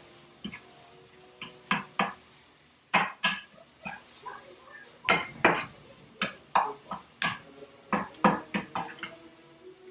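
A cooking utensil scraping and clinking against a frying pan as sloppy joe filling is stirred, in a string of irregular sharp strokes.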